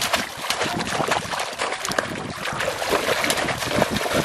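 Shallow water splashing and sloshing as two people wade through it and repeatedly plunge conical bamboo polo fish traps down into the muddy bottom.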